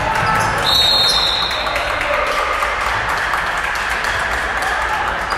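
Referee's whistle blown once for about a second, shortly after the start, over a steady hubbub of voices echoing in a large gym. There are a few faint knocks from a basketball and shoes on the court.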